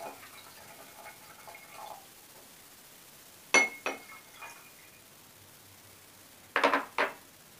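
Glass jar and drinking glass clinking against each other as they are handled: a sharp clink about three and a half seconds in that rings briefly, then a few quick knocks near the end.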